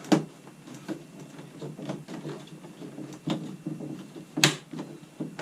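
Plastic exhaust hose fitting being twisted onto a Honeywell MM14CCS portable air conditioner, scraping with several sharp clicks and snaps, the loudest about four and a half seconds in. A rough fitting.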